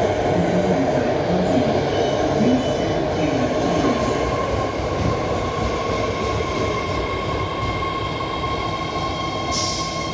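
BART train running along the station platform: a steady rumble of wheels on rail, with a steady high whine setting in about four seconds in. A short sharp hiss comes near the end.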